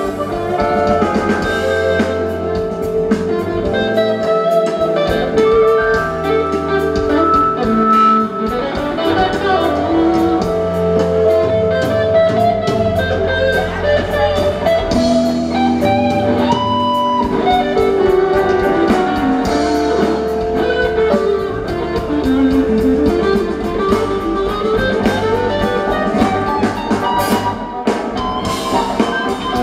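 Live band playing, with electric guitars, keyboard and drum kit, recorded from within the audience.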